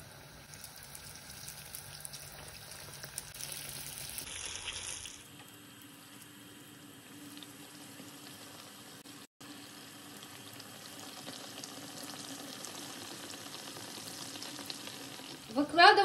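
Mushroom-filled yeast-dough pirozhki frying in a deep layer of hot vegetable oil in a large frying pan, sizzling steadily. The sizzle is louder for the first five seconds and softer after that.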